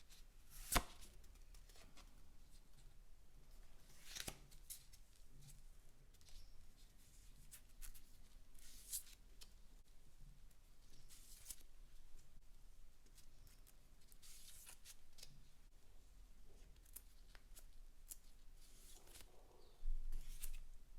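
Trading cards and cardboard packaging being handled: a sharp click about a second in and another around four seconds, then scattered short rustles and scrapes, with a louder thump near the end.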